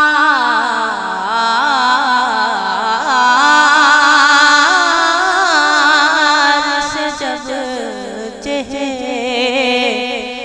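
A man singing a naat, drawing out long, wavering ornamented notes over a steady low backing note.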